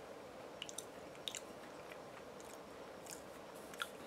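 Faint, scattered crunches of someone chewing Pringles potato crisps, over a steady room hum.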